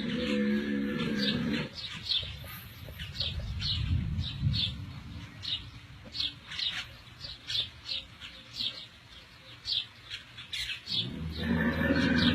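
Birds chirping, short high chirps repeating irregularly over low background noise. A low droning sound runs under the first second or two.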